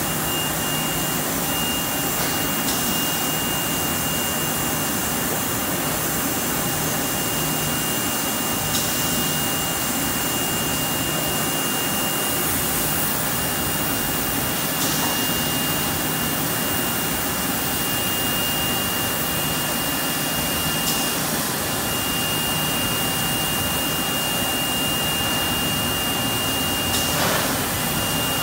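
Hypertherm HT2000 200-amp plasma torch on a Whitney 3700-ATC punch/plasma combo cutting metal plate: a steady hissing roar with a steady high-pitched whine over it. The whine drops out briefly a couple of times, and a few faint ticks come several seconds apart.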